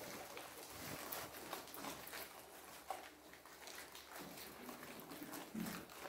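A group of guinea pigs munching kohlrabi leaves and peel: a dense, irregular patter of small crunching and nibbling clicks.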